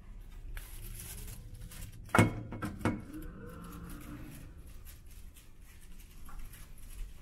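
Steady low hum of a ferry's machinery underway, with two sharp knocks about two and three seconds in, the first one louder.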